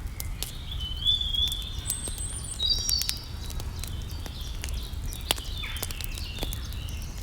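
Birds chirping in short high calls over irregular sharp crackling clicks from the roasting fire, with a steady low rumble underneath.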